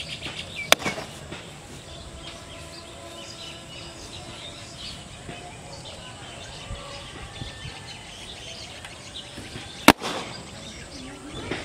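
Outdoor rural ambience with faint bird chirping, broken by two sharp clicks: one under a second in and a louder one near the end.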